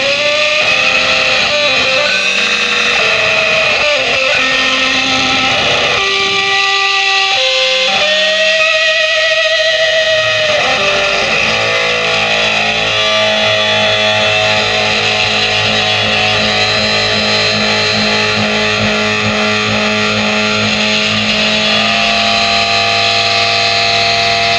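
Instrumental music on electric guitar through effects and distortion. Long held notes waver with vibrato, then about eleven seconds in they give way to a steady, layered drone over a sustained low note.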